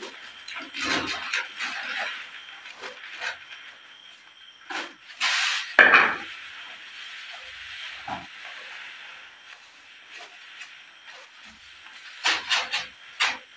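Steady hiss with scattered clinks and knocks of pots and cups while coffee is made over a camp fire or stove, the loudest knocks about five to six seconds in and again near the end.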